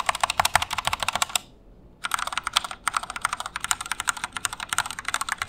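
Fast typing on an Epomaker EP84 mechanical keyboard with linear Gateron Black switches and stock, unmodded stabilizers: a rapid run of key clicks, a short pause about one and a half seconds in, then more fast typing.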